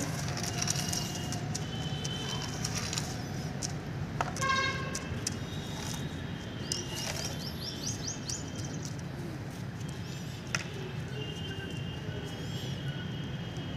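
Small birds chirping now and then over a steady low background hum, with a few faint clicks.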